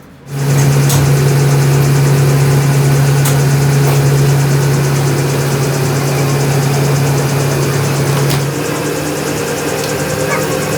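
A machine starts suddenly and runs with a steady, even hum, dropping slightly in level about eight and a half seconds in.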